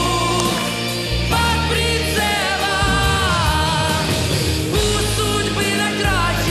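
A woman singing a Russian-language pop ballad into a handheld microphone over a loud backing track, with wavering vibrato on her held notes.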